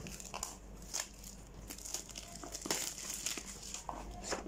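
Clear plastic shrink wrap on a smartphone box being crinkled and picked at by fingers, an irregular run of crackles as the film is worked loose to be torn open.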